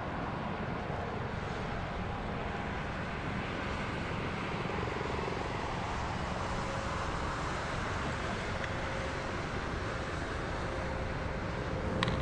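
Steady low rumbling noise with no speech, and a short sharp sound near the end.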